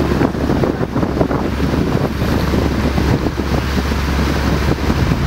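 Wind buffeting the camera microphone in uneven gusts, over a steady low hum.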